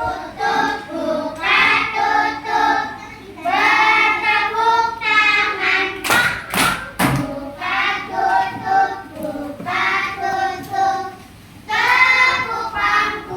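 Children singing together in sustained, sung phrases, with three sharp thumps about six to seven seconds in.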